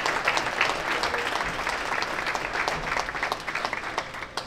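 Crowd applauding: many people clapping at once, thinning out near the end.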